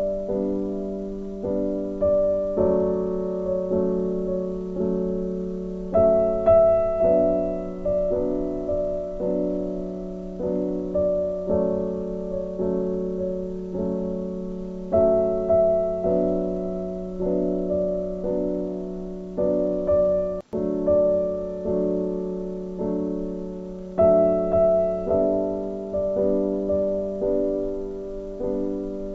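Background piano music: a gentle, even run of notes, about two a second, with a momentary break about two-thirds of the way through.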